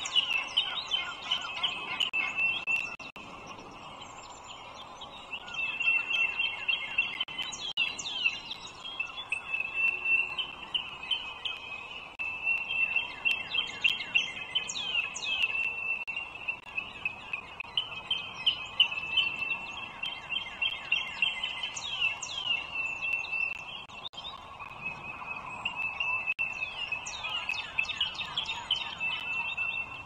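Bald eagle nestlings begging at the nest with rapid, high-pitched chirping, in bouts of a few seconds broken by short pauses, with now and then a sharp falling note.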